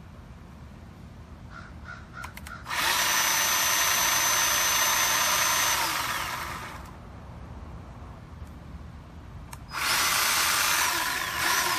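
Bauer 20V cordless electric chainsaw running with no load, chain spinning freely, in two runs of about three and two seconds. Each run has a steady high whine that falls away as the saw winds down. The chain is being run to check that bar oil reaches it after the oil reservoir was filled.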